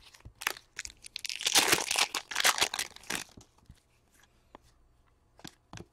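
The foil wrapper of a Fleer Ultra hockey card pack is torn open and crinkled, a dense crackling lasting about two seconds from about a second in. A few light taps of cards being handled follow.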